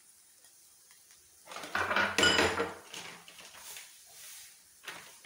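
Kitchen pots and utensils clattering as they are handled and set down, a loud burst of knocks about a second and a half in and a shorter knock near the end.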